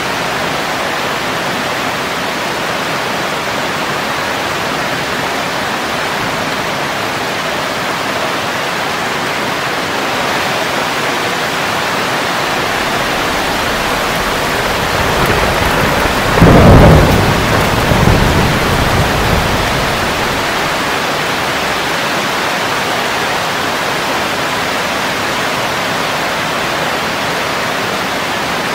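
Steady heavy rain falling on leaves, with a roll of thunder that swells up past the middle, peaks sharply, and rumbles away over a few seconds.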